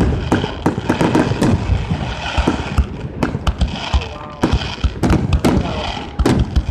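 Fireworks display: a rapid string of aerial shell bangs and crackling bursts, many reports in quick succession, with crowd voices underneath.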